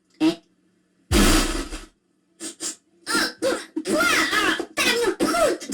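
A short, noisy fart sound effect about a second in, followed by cartoon Minion voices chattering.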